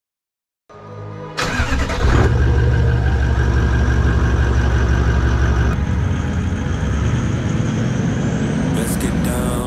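A vehicle engine starts about a second in and then runs steadily, with a low, even hum. A few sharp clicks come near the end.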